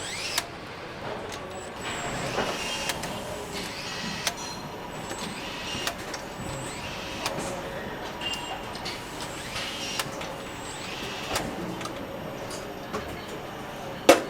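Factory assembly-line noise: a steady machinery din with scattered sharp clicks and knocks and occasional short high tones, and one loud sharp knock near the end.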